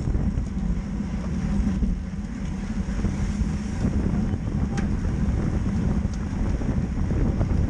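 Wind buffeting a bike-mounted camera's microphone while a road bike is ridden in a racing pack at about 26 to 28 mph, a steady low rumble mixed with tyre and road noise. A few short clicks sound, one about five seconds in and others near the end.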